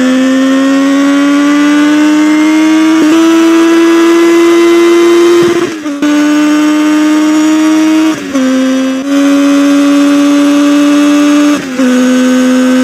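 Triumph Tiger Sport 660's 660cc three-cylinder engine pulling under acceleration: a steady, high engine note that rises slowly in pitch, then drops three times with brief breaks in the sound as the bike changes up through the gears.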